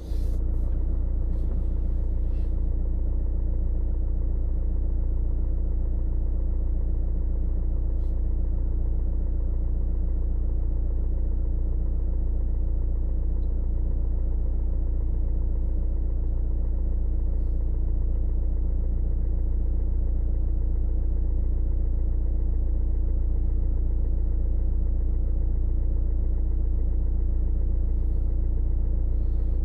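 Car driving at steady speed: a constant low engine and road rumble with a steady hum, no change in pitch or level.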